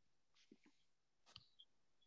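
Near silence, with a few very faint short clicks.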